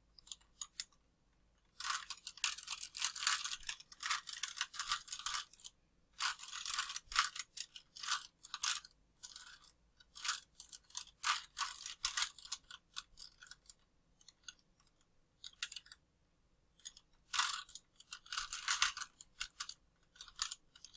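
Plastic 3x3 Rubik's cube being turned by hand: quick runs of clicking and rattling layer turns in several spells of a few seconds, with short pauses between them as the solver works through a sequence of moves.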